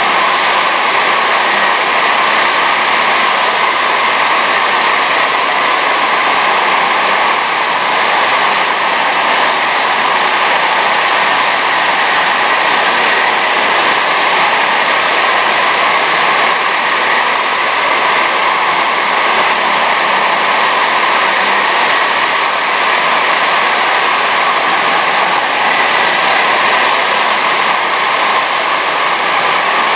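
Steady roar of several 6.5 hp rental karts racing round an indoor track, blended into one even noise with no single kart pass standing out.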